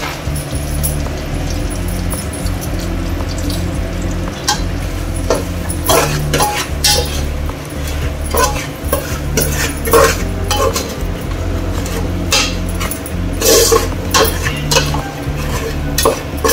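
Metal spatula stirring spiced potatoes and onions in oil in an aluminium pot, clinking and scraping against the pot in clusters from about four seconds in, over a steady low hum.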